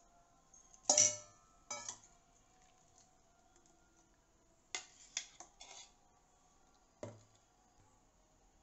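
Stainless steel mixer-grinder jar knocking and clinking against steel bowls while blended tomato purée is poured out of it. There is a sharp knock about a second in, another just after, a quick cluster of clinks around five seconds and one more knock near seven seconds.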